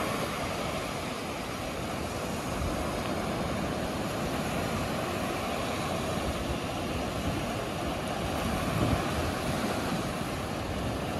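Small waves of the Black Sea breaking and washing up on a sandy beach, with wind rumbling on the microphone and a stronger gust about nine seconds in.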